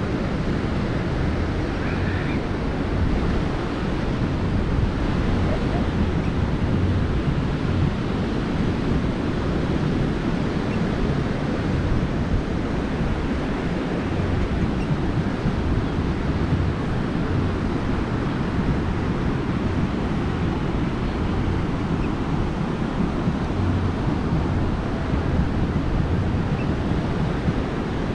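Ocean surf breaking and washing up the beach in a strong onshore wind, with wind buffeting the microphone in a steady low rumble.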